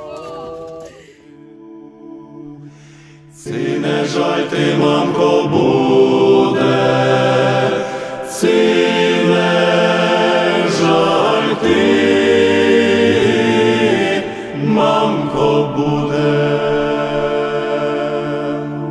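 Choir singing a slow chant in long held chords that change every few seconds. It starts quietly and swells to full voice about three seconds in.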